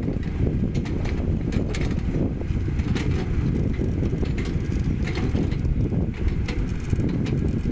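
Komatsu GD555 motor grader's diesel engine running with a deep steady rumble, overlaid by frequent sharp clicks and crunches of gravel aggregate being spread.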